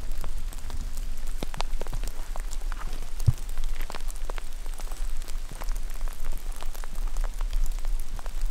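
Rain pattering on forest litter and clothing: scattered, irregular light ticks over a low steady rumble, with one soft thump about three seconds in.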